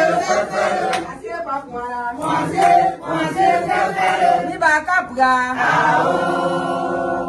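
A group of voices singing or chanting together, ending on a long held note near the end.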